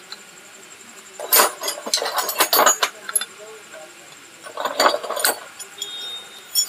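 Steel pushrods and valve-train parts clinking against the cylinder head of a small single-cylinder pump engine as they are fitted by hand, in three short clusters of light metallic clicks.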